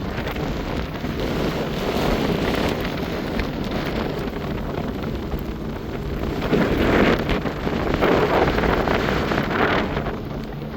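Wind buffeting the microphone over the rush of a choppy sea around a sailing ship, swelling in gusts about two seconds in and again from about six to ten seconds.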